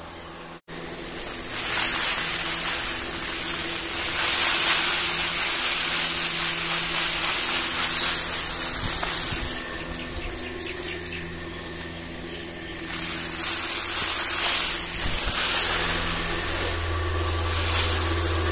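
Electric pedestal fan running, its air rushing in a steady hiss over a low motor hum, while flaxseed is poured from a metal bowl into the draught: winnowing the chaff from the seed.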